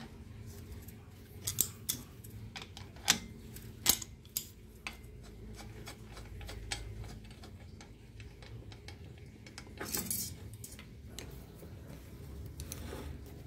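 Steel hand tools clinking and knocking against a bicycle's crank and bolt as the crank bolt is worked with spanners: a run of sharp metallic clicks in the first few seconds, then a short scraping rattle about ten seconds in.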